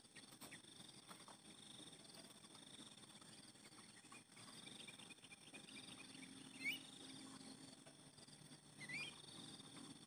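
Faint, steady insect trilling, with two short bird chirps about two-thirds of the way in and again near the end; the first chirp is the loudest sound.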